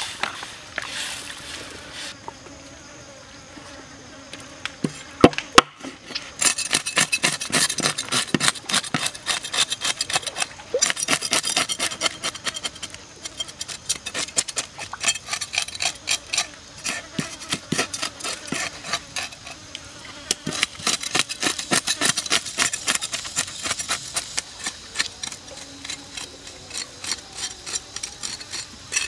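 Knife scraping the scales off a whole red fish on a wooden board: rapid rasping strokes, several a second, after a couple of sharp knocks about five seconds in.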